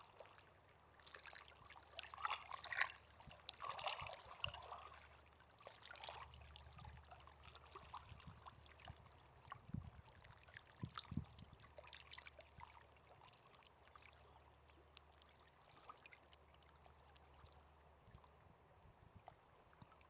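Paraná River water trickling and splashing at the edge in small, irregular splashes, busiest in the first few seconds and sparser after. A faint steady low hum runs underneath.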